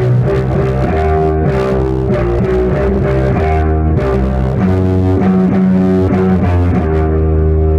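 1974 Rickenbacker 4001 electric bass played through a Lone Wolf Audio Iron Fist pedal into a 1976 Ampeg V4B tube bass head: a distorted riff of held notes that change pitch every half-second to a second.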